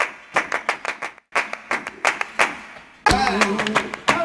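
Music of rhythmic hand clapping in a quick, uneven pattern, with a brief break just over a second in. About three seconds in, a voice starts singing over the claps.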